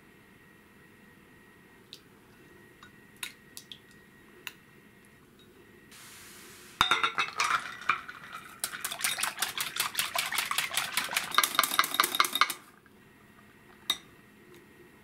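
Wire balloon whisk whipping fresh cream in a glass bowl: a fast, loud run of the wires clinking against the glass for about six seconds that stops suddenly. A few light clinks come before it, and one more near the end.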